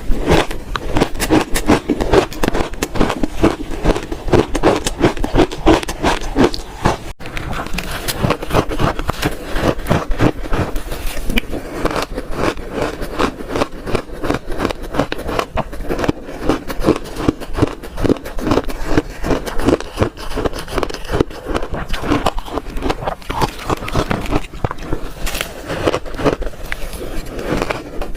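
Close-miked chewing of crunchy frozen shaved ice, a rapid continuous run of crisp crunches as the ice is bitten and ground between the teeth.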